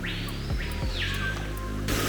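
Background music with steady low bass notes; a broad rushing hiss cuts in suddenly at the very end.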